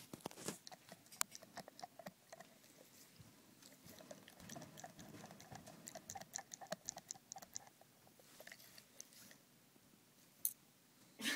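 Pit bull nibbling at his own toenails: faint, irregular clicks of teeth on the nails, with a quicker run of ticks about halfway through.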